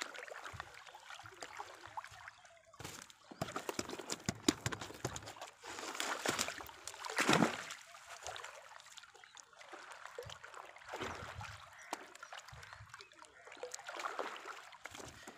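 Wet monofilament fishing net being hauled out of lake water hand over hand, with uneven splashing and dripping as the mesh comes over the side of the boat; one louder splash about seven seconds in.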